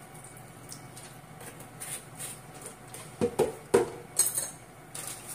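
Soy sauce sizzling and crackling as it hits the hot frying pan around cubes of homemade frozen tofu. There are a few loud knocks about three to four seconds in, then a brief burst of spatter.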